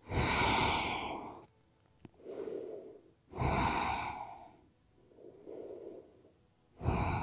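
A woman breathing deeply and audibly: three loud breaths about three and a half seconds apart, with a softer breath between each pair.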